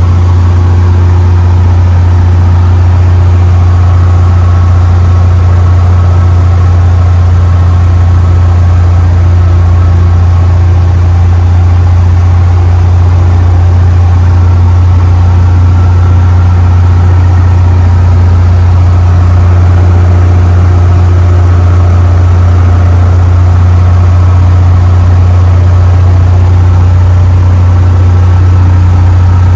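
Loud, steady cockpit drone of a 1951 Cessna 170A in cruise: its six-cylinder Continental engine and propeller run at constant power, with a strong low hum under the engine and wind noise, heard inside the cabin.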